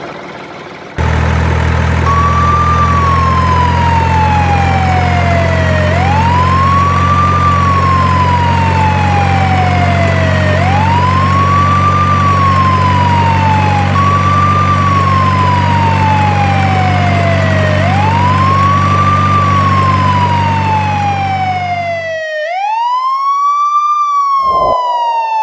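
Emergency-vehicle siren wailing in slow cycles, each rising quickly and falling away slowly, over a steady low engine drone that starts suddenly about a second in. The engine drone cuts out near the end and the siren carries on alone for a few more seconds.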